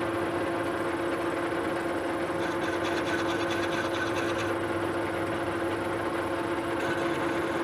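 Metal lathe running, its chuck spinning a 2-inch hot-rolled steel bar: a steady machine hum with a constant tone.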